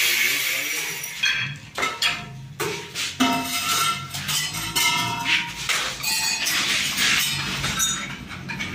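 Hammer blows on stainless steel railing posts and fittings: a string of irregular metallic knocks and clinks, many with a short ring.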